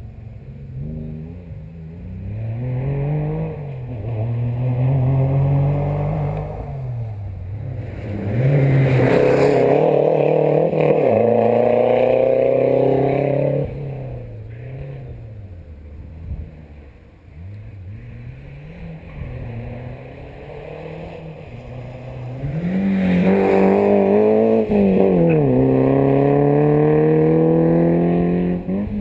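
Rally cars on a special stage accelerating hard through the gears, the engine note climbing and dropping at each upshift. One car goes by loudly about a third of the way in and another near the end, each heard approaching first at lower level.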